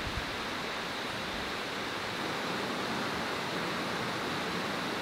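Steady rush of flowing water from a shallow rocky forest stream.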